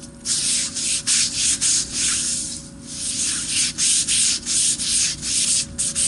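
A hand-held abrasive pad scrubbed back and forth over wet concrete, about three rasping strokes a second, with a short pause near the middle; the rubbing smooths the slab's surface.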